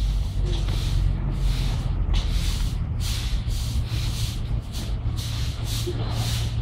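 Wind noise on the microphone: a steady low rumble with rustling hisses coming several times a second.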